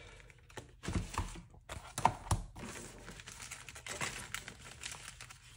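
Packaging and paper merchandise rustling and crinkling as they are handled and put aside, with a few light knocks about one and two seconds in.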